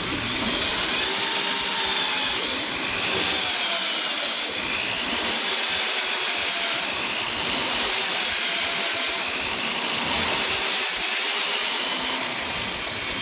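Power drill running steadily with a reverse-cut bit, boring out the aluminum throttle-shaft bore of a Carter carburetor for new bushings.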